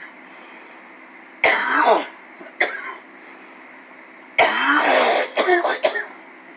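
A man coughing and clearing his throat in harsh fits: a bout about a second and a half in, a short cough a second later, then a longer hacking fit near the end that breaks into several short coughs.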